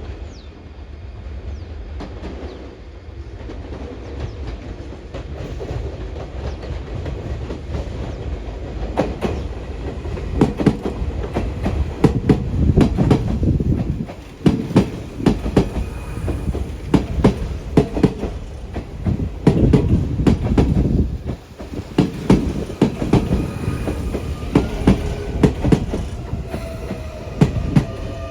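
Sotetsu 9000 series electric train running into a station over rail joints: a rumble that builds, then from about a third of the way in, groups of sharp clacks as each bogie's wheels cross the joints. A faint whine comes in near the end.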